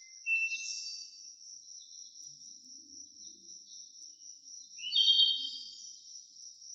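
Insects trilling steadily in a high pulsing note, with a short bird chirp just after the start and a louder bird call about five seconds in.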